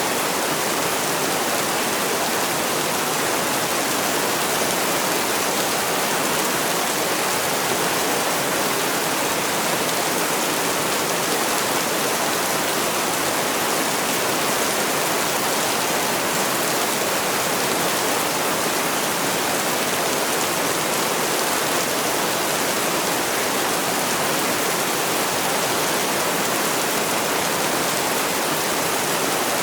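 Heavy rain falling steadily, an even hiss with no separate drops, thunder or gusts standing out.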